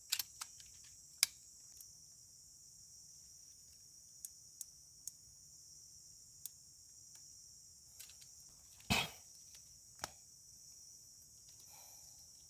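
Steady high-pitched chorus of insects droning without a break, with scattered faint clicks and knocks and one louder knock about nine seconds in.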